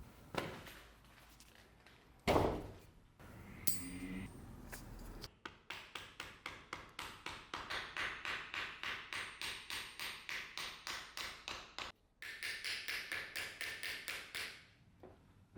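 A few knocks at the start, one with a short metallic ring, then rapid, even back-and-forth scraping strokes of hand work on the workpiece, about four a second, pausing briefly once near the end.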